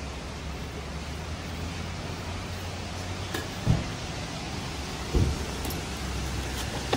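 Steady hum of traffic and idling vehicles along a busy curb, with two dull thumps about a second and a half apart past the middle.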